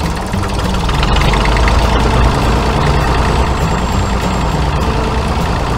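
Tractor engine running steadily as the mini tractor pulls its trailer.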